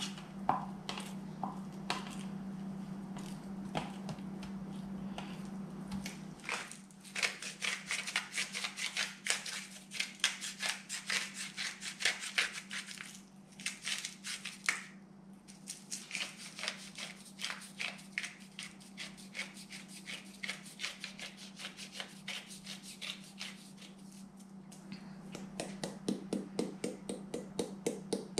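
Hand-turned spice grinder twisted over pork slices, grinding in long runs of fast, dry crunching clicks with brief pauses about halfway. Near the end comes a slower, regular tapping of flour being shaken from a shaker cup. A low steady hum is heard in the first few seconds.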